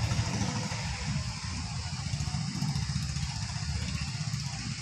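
A vehicle engine running steadily off-screen, a low even rumble with no revving.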